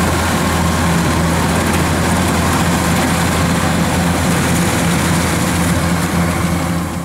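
Kubota tracked rice combine harvester working in a paddy: a steady, loud diesel engine drone with a low hum, mixed with the running noise of its cutting and threshing machinery.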